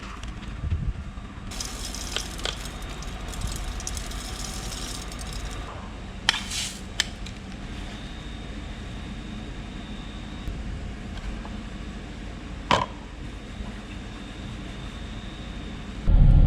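An oat sample being poured and handled in a grain moisture tester: a rustle of grain for a few seconds, then a few sharp clicks of the tester, over a steady low hum in the background.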